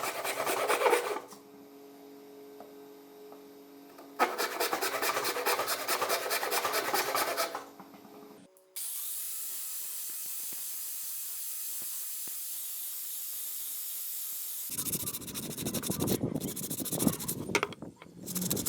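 Rapid back-and-forth rubbing strokes of hand-abrading rust off an old steel cleaver, in short passages. A steady hiss runs for about six seconds in the middle.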